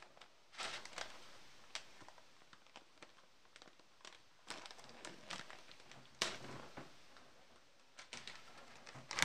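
Plastic food packet rustling and crinkling as it is handled, with scattered light clicks and taps.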